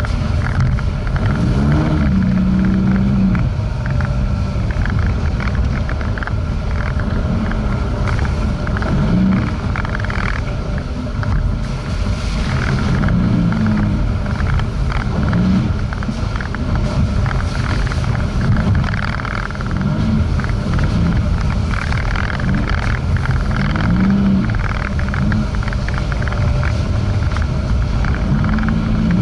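Jeep Renegade Trailhawk driving slowly over a potholed dirt road, heard from inside the cabin: a steady low rumble of engine and tyres. Every couple of seconds there is a brief rise and fall in pitch.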